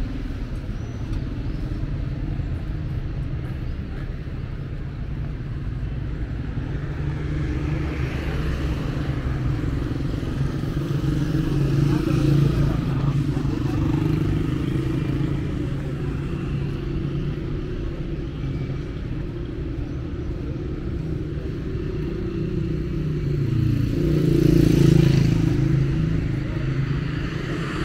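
Busy street traffic: car and motorcycle engines running and passing close by, in a steady hum that swells as vehicles go past, loudest near the end.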